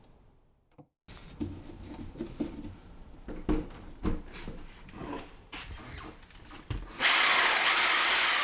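Scattered clicks and knocks of hand tool work. About seven seconds in, a power drill starts cutting into wood, loud and harsh.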